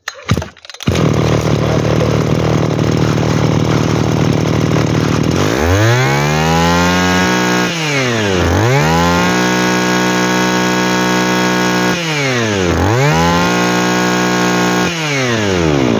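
Komatsu G2KC 22cc two-stroke brush cutter engine starts about a second in and idles. It is then revved up three times, held high each time, and drops back toward idle in between, running smoothly.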